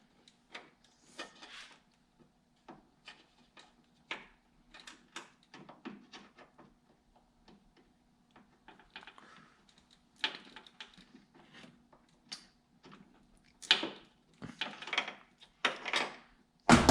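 Small clicks, taps and scrapes of hand work on a wire, a crimp terminal and a crimping tool, irregular and scattered, with louder clusters about ten seconds in and again near the end.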